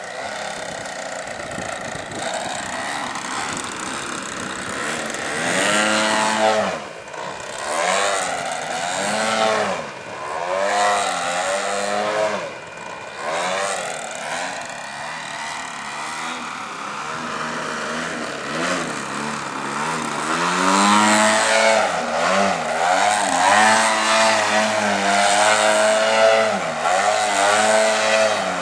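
Extreme Flight Extra aerobatic RC plane's engine and propeller, the pitch repeatedly swooping up and down as the throttle is worked through 3D manoeuvres. From about twenty seconds in it gets louder and holds a steadier note.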